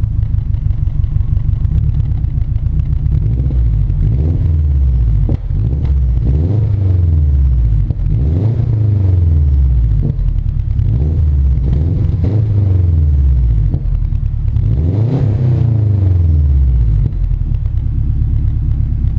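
Subaru Forester XT's turbocharged flat-four boxer engine, heard through an aftermarket axle-back exhaust, idling with a low rumble and then blipped about six times, each rev rising and falling back. The biggest rev comes about two-thirds of the way through, and it settles back to idle near the end.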